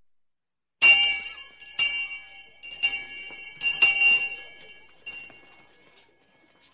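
Handheld fire bell struck five or six times about a second apart, each stroke ringing with several high metallic tones that die away, the ringing fading out near the end.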